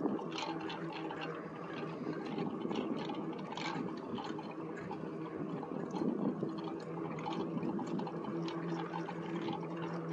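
Electric bike riding along a paved road: a steady motor hum over wind and tyre rush, with scattered light clicks and rattles.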